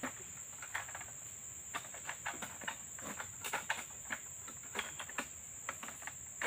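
Steady high-pitched insect drone in the plantation, with scattered light ticks and rustles throughout.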